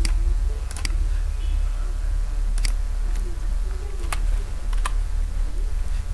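A handful of sharp computer mouse clicks and keyboard key presses, irregularly spaced, some in quick pairs, over a steady low electrical hum.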